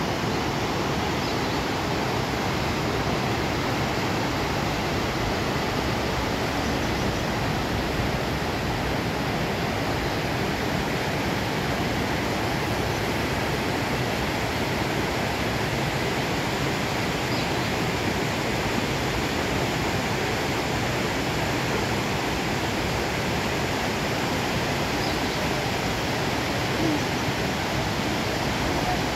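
Fast mountain river rushing over boulders in shallow rapids: a steady, unbroken rush of white water.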